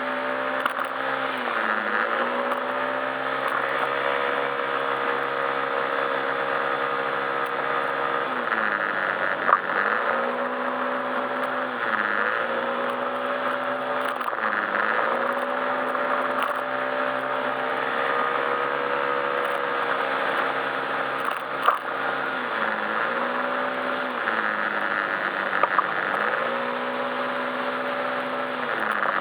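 Yamaha Majesty S scooter's single-cylinder engine running under way, its pitch dipping and climbing back every few seconds as the throttle is eased and reopened. A few short sharp knocks stand out over the running.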